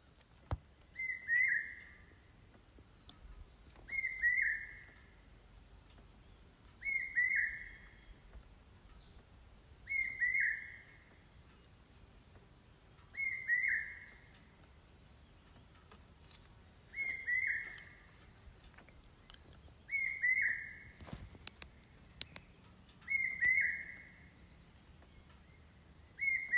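A bird calling repeatedly in forest: one short call of a few quick falling notes, repeated about every three seconds, nine times over.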